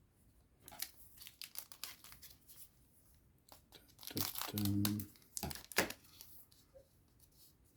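Plastic booster pack wrapper being torn open and crinkled by hand, in irregular crackly bursts, with a brief low buzz about four and a half seconds in as the loudest moment.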